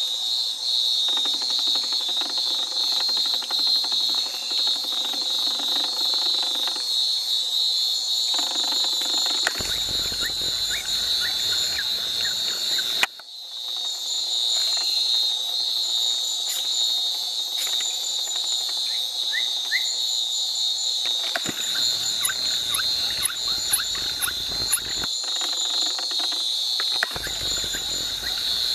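Night-time rainforest insect chorus: a steady high-pitched drone with a faster pulsing trill above it. Stretches of low rumbling handling noise come and go, and the sound drops out briefly about halfway through.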